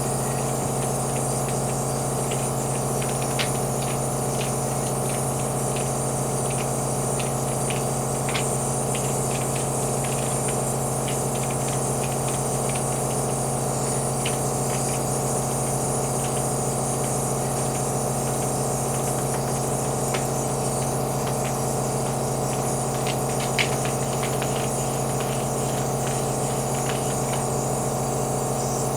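Nebulizer air compressor running with a steady, even hum, with the hiss of air through the nebulizer and a few faint scattered ticks, partway through a breathing treatment with the medicine cup almost empty.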